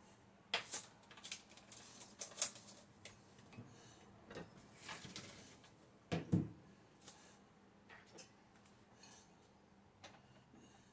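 Kitchen handling sounds: scattered light clicks and knocks of containers and dishes being moved about on a counter, with one louder thump about six seconds in.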